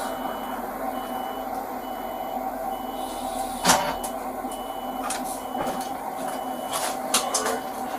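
A vehicle's electronic warning beeper sounding a high beep over and over, about once a second, over a steady engine hum. A sharp click comes about four seconds in, and a few more near the end.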